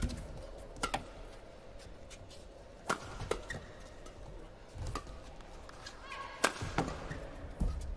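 Badminton rackets striking a shuttlecock in a doubles rally: a string of sharp cracks, roughly one every second or so, with a few brief squeaks late on.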